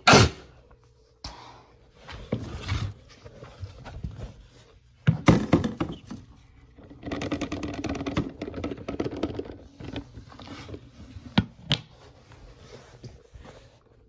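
Knocks, bumps and scraping of objects being handled, with no vacuum motor running: a sharp knock at the start, a loud clatter about five seconds in, and a rapid rattling stretch a couple of seconds later.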